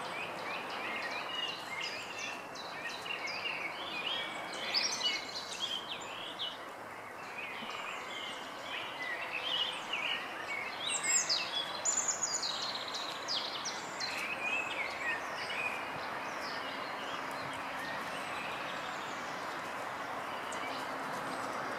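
Small birds chirping and twittering, many short high calls overlapping, over a steady hiss of background noise; the calls thin out over the last few seconds.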